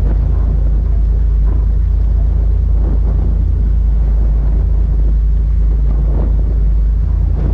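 A motorboat under way: its engine runs with a steady low rumble while wind buffets the microphone, gusting now and then.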